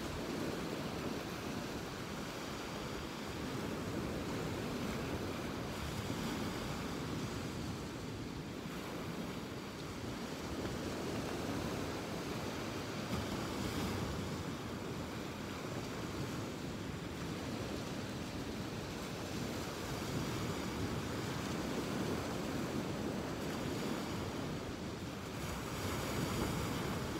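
Ocean surf washing onto a beach, rising and falling gently, with wind rumbling on the microphone.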